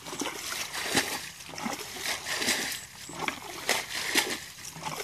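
Water splashing as a plastic bucket is dipped into a shallow muddy ditch and the water flung out, bailing the ditch: an irregular run of splashes, about one or two a second.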